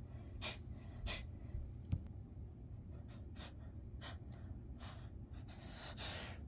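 A person's short sniffles and catching, gasping breaths, about half a dozen spread through, between stifled sneezes: the build-up of a sneeze being held back. A soft low thump about two seconds in.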